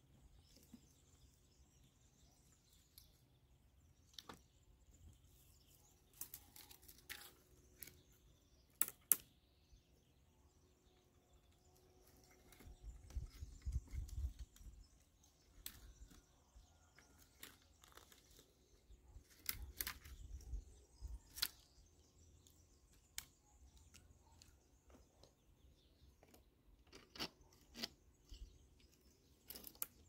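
Sporadic snaps, crackles and crunches of sticks and dry forest litter being handled, the sharpest cracks about nine seconds in, with a low rumble twice, over faint birdsong.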